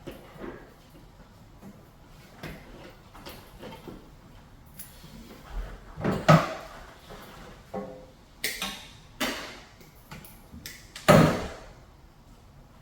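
Handling noises while ceiling-fan wires are being spliced together: irregular rustles and clicks, with several louder scraping clatters, the loudest about six and eleven seconds in.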